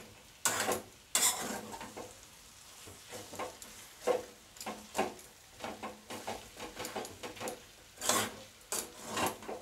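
Spatula stirring spiced masala frying in a pan: irregular scrapes and knocks of the spatula against the pan over a soft sizzle.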